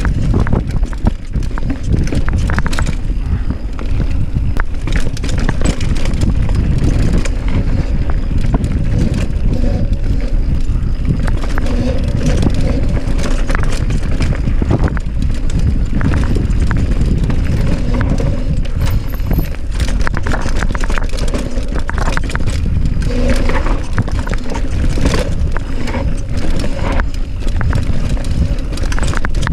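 Mountain bike riding down a rough downhill trail: a steady loud rumble of wind and tyre noise, with constant rattling and knocks from the bike over the rough ground.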